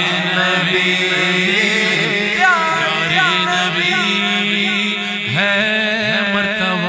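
Naat being sung: a man's voice singing long, ornamented gliding lines over a steady low drone.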